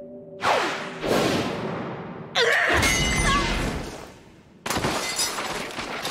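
Anime sword-fight sound effects: two sudden rushing whooshes, then a loud crash with metallic ringing and a deep rumble about two and a half seconds in, and another crash near the end.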